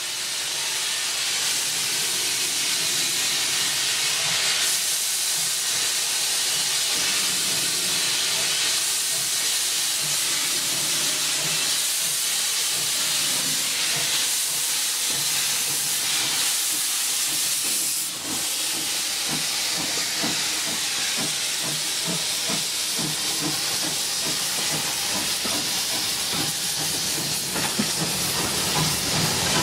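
LBSCR E4 0-6-2T steam tank locomotive B473 'Birch Grove' hissing loudly as steam blows from its open cylinder drain cocks while it works its train. From a little past halfway, a quick rhythmic knocking runs underneath as the coaches roll past.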